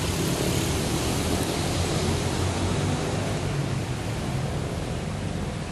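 Steady rumble and hiss of road traffic, with a low engine drone underneath, easing a little in the second half.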